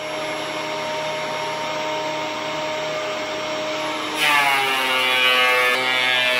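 Benchtop thickness planer's motor and cutterhead running steadily at full speed. About four seconds in a board feeds into the cutter: the sound gets louder and rougher, and the motor's pitch drops as it loads down under the cut.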